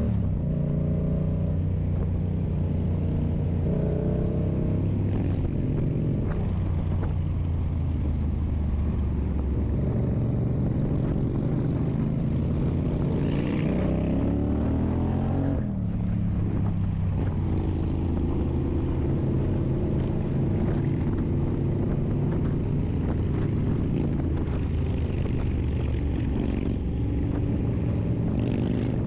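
Yamaha MT-07's parallel-twin engine through an SC Project aftermarket exhaust, riding at steady speed. About halfway through the revs climb for a few seconds, then fall away suddenly before settling back to a steady run.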